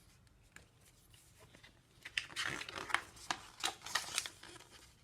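Paper pages of a picture book being handled and turned: quiet at first, then about two seconds of irregular rustling and crinkling with small sharp ticks.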